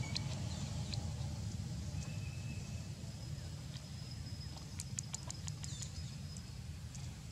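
Dry fallen leaves crackling in a quick run of crisp clicks about five seconds in as a baby monkey scampers over the leaf litter, over a steady low rumble.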